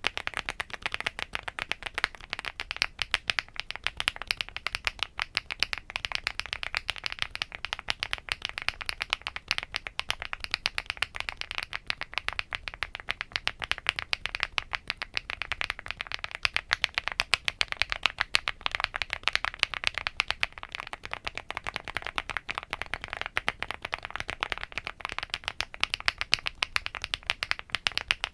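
Rainy75 mechanical keyboard with a polypropylene (PP) plate being typed on continuously: a fast, even stream of keystrokes, many per second.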